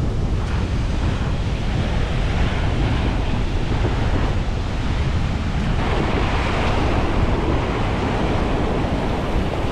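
Ocean surf breaking and washing over shoreline rocks, with wind rumbling on the microphone. A louder wash of water comes in about six seconds in.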